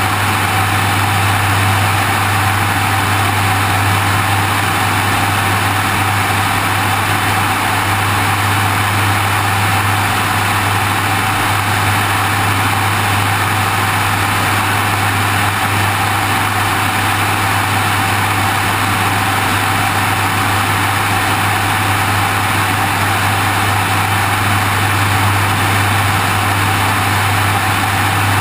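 Steady drone of a light aircraft's engine and propeller in flight, with a constant low hum and rushing airflow over a wing-mounted camera, unchanging throughout.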